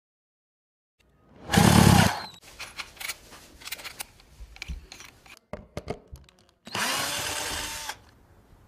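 Cordless power drill running in two short bursts: the first and loudest about a second and a half in, winding down as it stops, the second steadier one near the end. Clicks and rattles of handling come between them.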